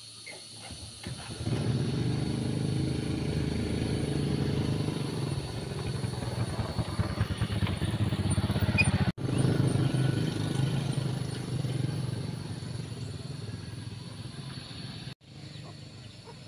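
Small motorbike engines, one a Yamaha underbone, pulling away and riding close past. The engine sound rises about a second in and fades near the end.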